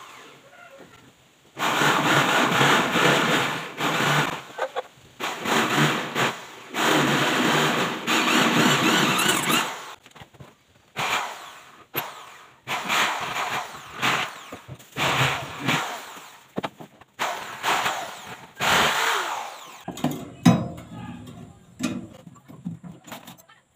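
Electric drill boring holes through a plywood sink form, running in repeated runs of a second or two each that stop and start. Near the end there are lighter, scattered clicks.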